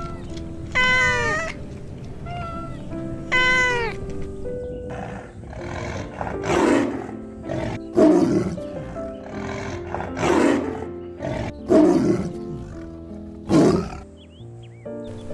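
Animal calls over background music: two short pitched cries that rise and fall near the start, then about six rough, breathy calls roughly every second and a half through the second half.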